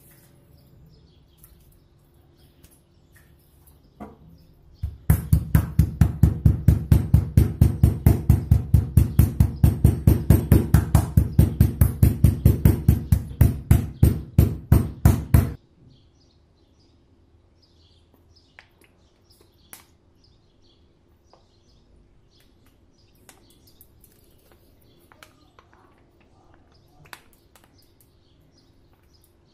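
Metal meat mallet pounding chicken fillets flat on a plastic cutting board: a fast, even run of knocks, about four a second, starting about five seconds in and stopping abruptly some ten seconds later. Afterwards only faint scattered clicks.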